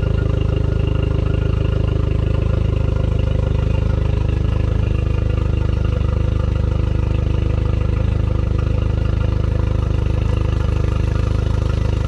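Honda BF100A four-stroke outboard engine running steadily at an even speed.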